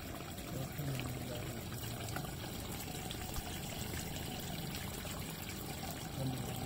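Water trickling and splashing steadily as a netful of small pond fish thrash in shallow water.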